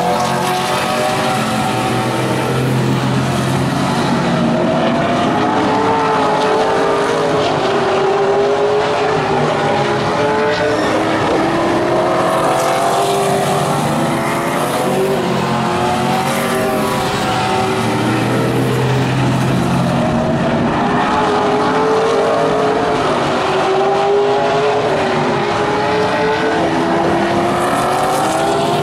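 A pack of vintage modified race cars running laps on a short oval, several engines overlapping, their pitch rising and falling over and over as the cars accelerate down the straights and lift into the turns.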